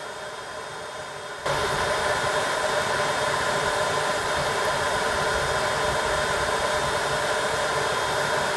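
Steady whir of cooling fans with several steady tones in it, stepping up suddenly to a louder level about a second and a half in and holding steady after that.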